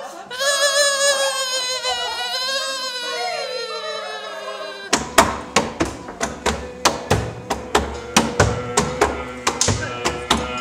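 Several voices singing a held, wavering note that slowly sinks in pitch, ending about five seconds in. Then a quick, even run of sharp hand strikes, about three a second.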